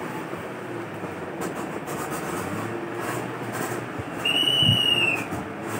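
Steady background noise with a few faint clicks; about four seconds in, a single high whistle-like tone sounds for about a second, dipping slightly in pitch as it ends, with a low thump under it.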